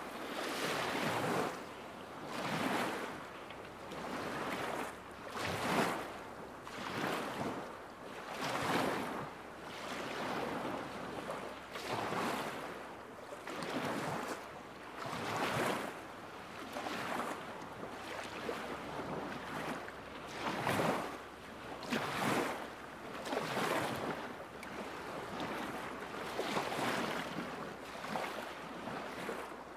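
Small waves lapping against a lakeshore, each wash swelling and falling away about every one and a half to two seconds.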